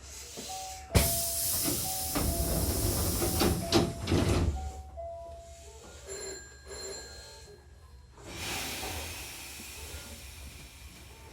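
Hankyu Takarazuka Line train's sliding passenger doors closing: a sudden knock about a second in, then a loud hiss of air for about three seconds with short tones over it, and a second, softer hiss about eight seconds in.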